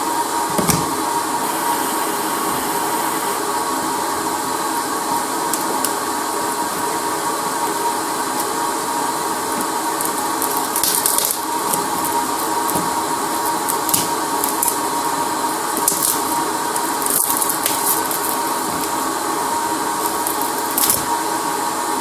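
Steady hiss of a hot-air rework station's blower, with a fixed fan tone, heating the glued-on back panel. Now and then come short, sharp scrapes of a metal pry tool on the shattered glass back of a Sony Xperia Z3.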